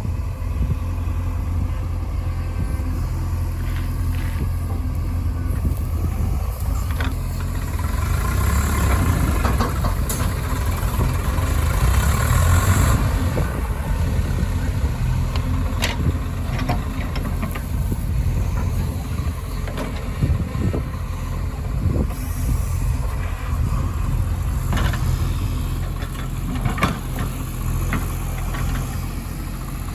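Heavy diesel engine running steadily, growing louder about eight seconds in and easing back a few seconds later, with a few sharp knocks later on.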